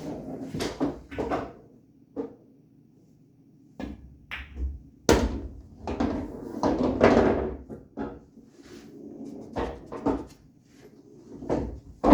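Pool balls on a bar-box table: the sharp clacks of cue strikes and ball-on-ball hits, with duller thuds of balls against the cushions and into the pockets. They come as a string of separate shots with short quiet gaps.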